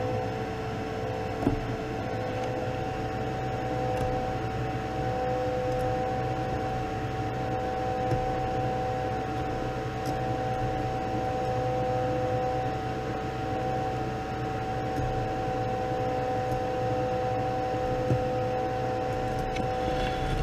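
Paint booth exhaust fan running with a steady hum, and a few light clicks as clips are pulled off a fabric-wrapped lure.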